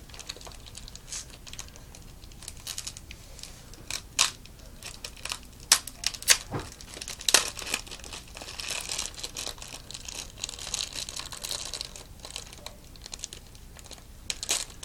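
Plastic packaging being handled and crinkled while fishing lures are unpacked, with several sharp clicks between about four and seven and a half seconds in, and denser crinkling after that.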